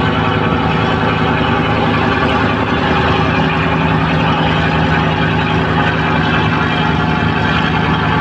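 Fishing boat's inboard diesel engine running steadily with a deep, even hum.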